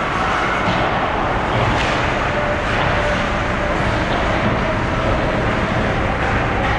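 Steady, loud rumbling ambience of an ice-hockey rink during a game, with faint indistinct knocks and tones over it.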